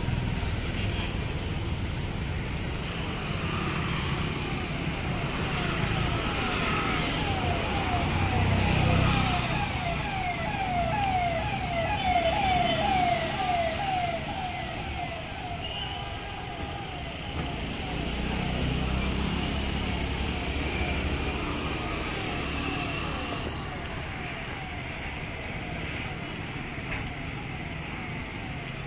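A vehicle siren sounding a fast, repeating falling whoop. It swells in about six seconds in, is loudest around the middle and fades out by about fifteen seconds, over the low rumble of street traffic.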